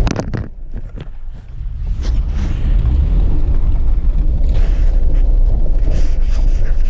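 Wind buffeting the camera microphone: a steady low rumble. A few sharp clicks come at the start, and the level dips for a second or so before the rumble builds back up.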